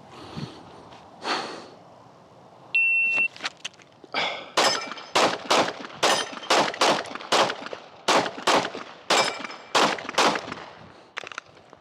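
A shot timer's steady beep about three seconds in, then a Glock 45 9mm pistol fired in a fast string of more than a dozen shots, in quick pairs and singles, as the shooter transitions between targets on a timed drill.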